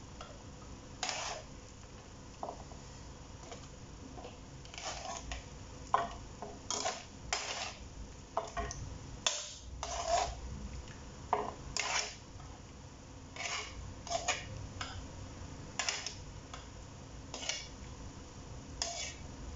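Metal tongs clinking and scraping against a wok and a ceramic bowl in short, irregular strokes while vegetables are lifted out of broth.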